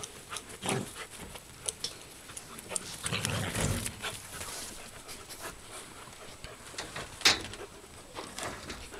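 Alaskan malamute puppies playing rough: short, scattered dog sounds and scuffling, a longer, louder tussle about three seconds in, and one sharp, loud sound near the end.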